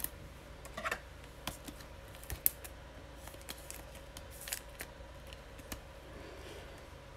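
Trading cards being handled and slid into a clear hard plastic card holder: scattered light plastic clicks and card rustles.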